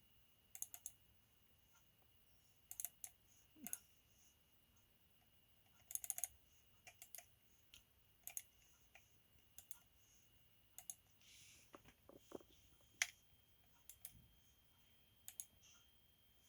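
Light scattered clicks of a computer keyboard and mouse, in small clusters every second or two, over a faint steady high tone.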